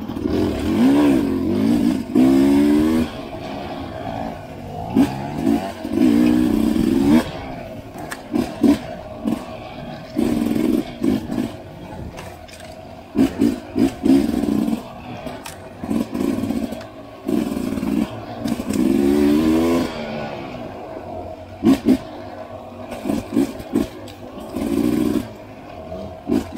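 Dirt bike engine revving up and down in repeated short bursts of throttle, dropping back between surges, as the bike is ridden over rough trail.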